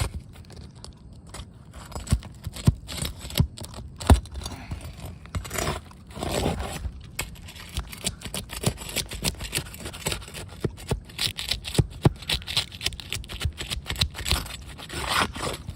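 Three-tab asphalt roof shingles being worked loose and pried up. The sound is repeated scraping with many sharp clicks and knocks as the brittle shingles crack and tear.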